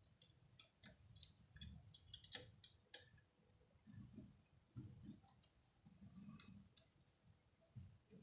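Near silence with faint, scattered small clicks and taps from fine metal tweezers and a flat ribbon cable being handled against a Raspberry Pi board in a metal case, with soft dull handling bumps between them.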